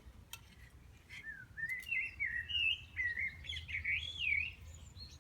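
A bird singing a warbling song that slides up and down in pitch for about three seconds, starting about a second in. A few faint clicks come just before it.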